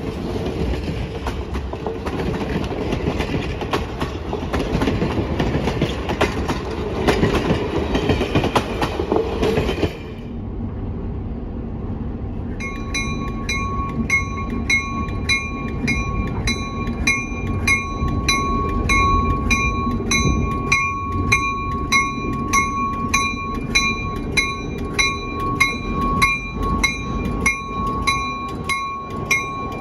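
Passenger cars rolling past with the clickety-clack of wheels over rail joints. After a break, a diesel locomotive runs at a low steady hum while its bell rings in even, repeated strokes.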